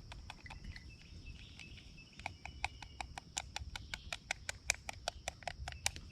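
Rapid, even clinking of a spoon stirring coffee in a metal camp cup, about six clinks a second from about two seconds in, after a few scattered clinks. A steady high-pitched hiss or drone runs underneath.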